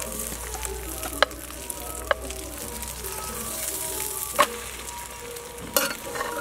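Egg frying in oil in a nonstick pan, a steady sizzle. A few sharp knocks of a spatula against the pan cut through it, four in all, the loudest about four seconds in.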